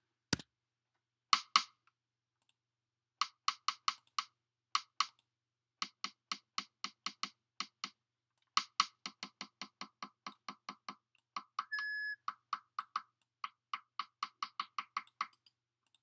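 Short, clicky drum-machine hits from a Redrum drum channel, run through a Pulveriser effect and repeating evenly about four times a second. The pattern stops and restarts several times, and a brief steady beep sounds about three quarters of the way through.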